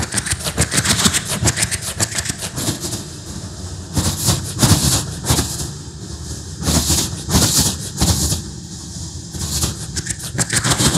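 A mimicry artist's vocal imitation of a train running at speed: a rapid clickety-clack of wheels over rail joints over a low rumble, made with the mouth through a PA. The clatter swells and eases every few seconds.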